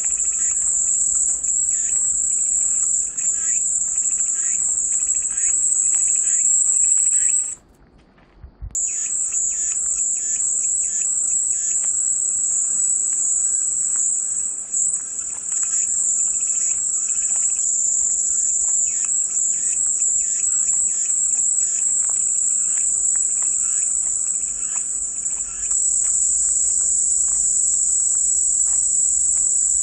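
Cicadas singing in a steady, loud, high-pitched chorus. The sound cuts out for about a second roughly eight seconds in, then resumes.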